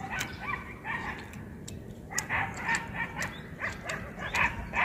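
Dog whimpering and yipping in short, repeated calls, with sharp clicks scattered between them.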